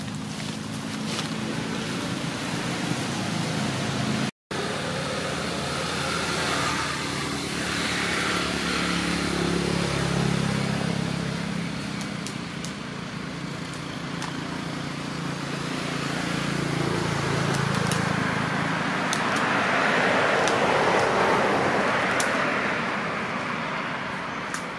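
Motor vehicle engine noise, a low steady hum that swells and fades as traffic passes, with a brief cutout about four seconds in.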